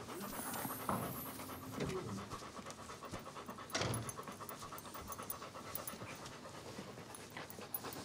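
Large dog panting rapidly and steadily while being held for examination, with a few soft knocks of handling, the sharpest about four seconds in.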